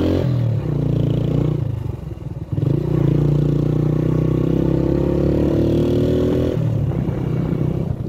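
A vehicle engine pulling through its gears. Its pitch rises steadily, falls at a shift about a second and a half in, rises again and falls once more near the end.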